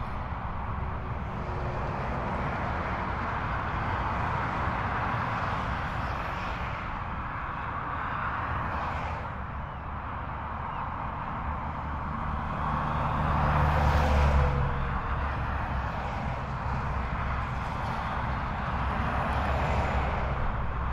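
Jaguar XJS V12 engine idling steadily with a low, even hum, swelling louder for a couple of seconds around the middle.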